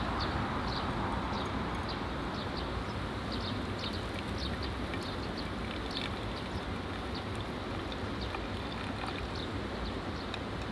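Hot water pouring in a thin, steady stream from a camping kettle onto ground coffee in a pour-over coffee maker, trickling into the wet grounds.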